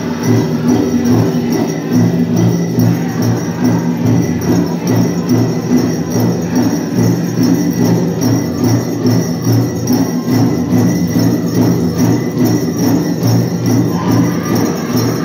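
Pow wow drum group playing a grand entry song: a steady beat on the big drum under singing voices, with the metal cones of the jingle dresses jingling as the dancers step.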